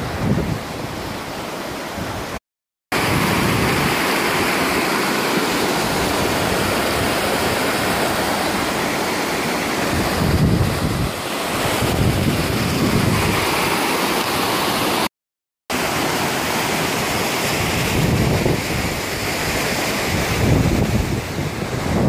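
Steady rushing hiss of a shallow rocky creek with wind gusting on the microphone, swelling now and then. The sound cuts out completely twice for under a second, about two and a half seconds in and again about fifteen seconds in.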